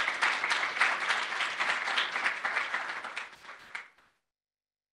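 Audience applauding, the clapping thinning out and stopping about four seconds in.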